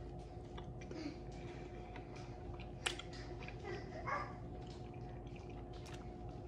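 Wet chewing and mouth sounds of eating a sauce-covered fried chicken wing: scattered small smacks and clicks, with one sharp click about three seconds in, over a steady low hum.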